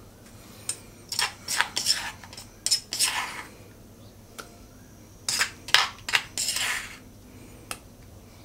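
A spoon scraping and clinking against a stone mortar and a ceramic bowl as thick chili paste is scooped out. The sound comes in two spells of quick scraping strokes and clinks, the first about a second in and the second around the middle.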